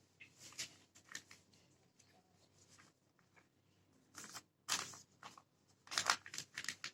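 A sheet of paper being folded and creased by hand: faint, scattered rustles and crinkles, busiest in the last three seconds.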